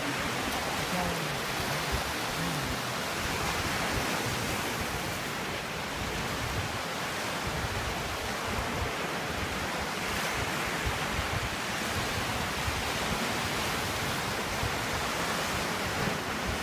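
Calm sea washing against a rocky shoreline: a steady wash of small waves with slight swells.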